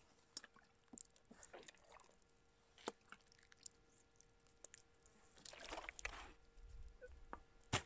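A freshly dug copper coin being washed by hand with water: faint dripping and wet handling with scattered small clicks, a little fuller about five and a half seconds in.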